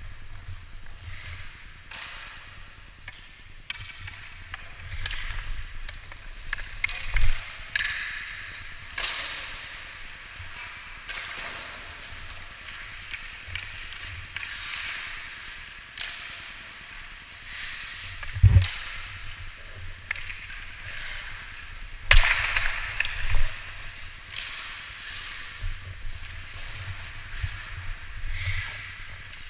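Ice hockey play: skate blades scraping and carving the ice in rising and falling hisses, with several sharp cracks and knocks of sticks and puck, the loudest about two-thirds of the way through. A low, choppy rumble of wind runs on the microphone underneath.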